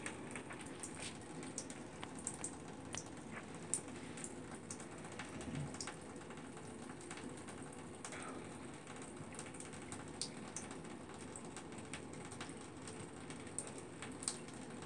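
Thin stream of water running from a bathtub faucet into the tub, quiet and steady, with many small irregular clicks and ticks.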